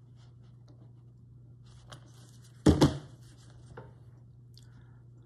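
Carving knife paring and slicing small cuts in a hand-held wooden block, with faint scraping cuts and, about two and a half seconds in, a brief spell of denser scraping ending in a loud double knock.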